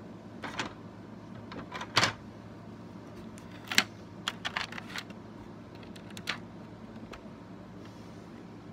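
Plastic LEGO bricks clicking and clacking as they are handled on a brick model: a string of irregular sharp clicks, the loudest about two seconds in and just under four seconds in, with a quick run of smaller clicks after it.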